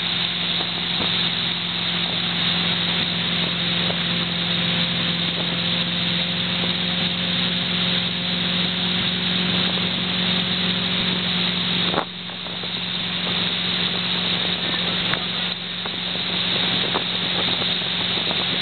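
Motorboat engine running steadily at speed while towing a water skier, under a constant rush of wind on the microphone and churning water. A single sharp click comes about twelve seconds in.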